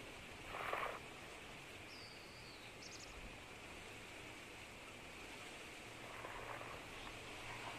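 Open-air mountain ambience with a steady hiss, a short rustle just under a second in, and a thin, falling high whistle at about two seconds.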